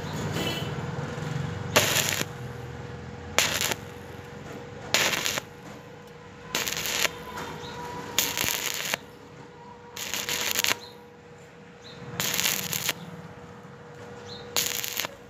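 Stick (arc) welding on thin steel: the electrode's arc crackles in short bursts about every one and a half seconds, struck and broken again and again to fill a hole in the thin metal without burning through. A faint steady hum runs underneath.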